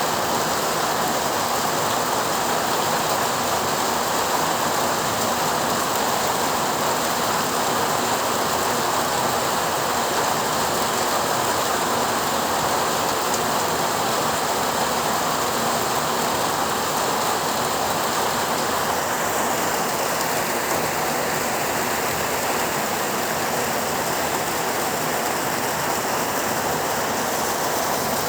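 Heavy rain falling steadily, a dense even downpour with no distinct drops or thunder standing out.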